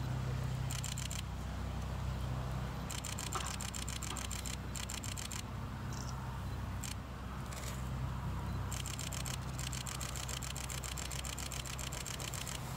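Camera shutters firing in rapid bursts of continuous shooting, several runs of quick evenly spaced clicks of a second or two each, over a steady low rumble.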